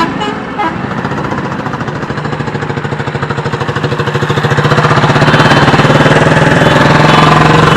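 A motor vehicle engine running with a fast, even pulsing beat and a steady pitch. It grows louder over the first few seconds, then holds.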